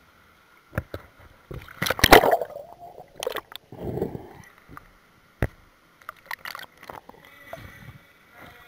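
Pool water splashing, sloshing and gurgling around a camera that dips below the surface, with scattered sharp clicks and knocks. The loudest splash comes about two seconds in.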